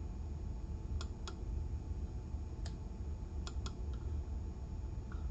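Six or so light, sharp clicks, scattered irregularly over about three seconds, against a steady low hum.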